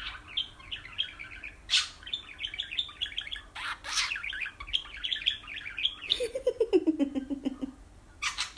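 Pet budgerigar warbling in a fast, chattering run of chirps, broken by a few sharp louder chirps. About six seconds in, a lower warble slides down in pitch for a second or two.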